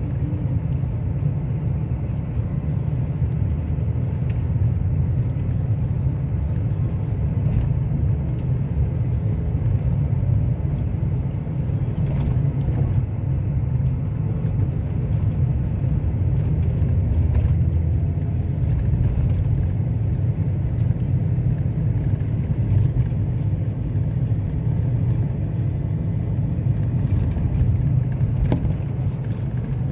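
Steady low rumble of a car driving along a town road, heard from inside the cabin: engine and tyre noise at an even pace, with a few faint clicks.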